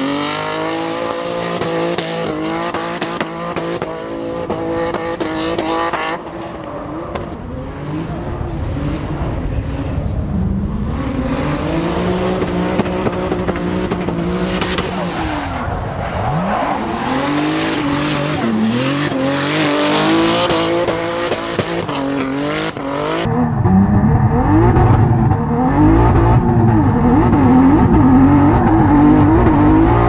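Hyundai Genesis Coupe drift car's twin-turbocharged 3.8-litre V6 revving up and down through a drift, with tyre squeal under it. About 23 seconds in the sound switches to inside the cabin: louder, with the engine pitch swinging up and down quickly.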